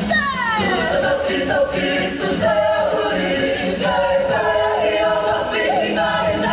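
A group of voices singing together in harmony, unaccompanied or nearly so, with a long downward slide in pitch right at the start.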